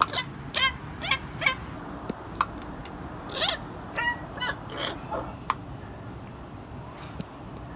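Oriental pied hornbills calling: a series of about ten short, harsh honking calls over the first five and a half seconds, then only a steady low background hum.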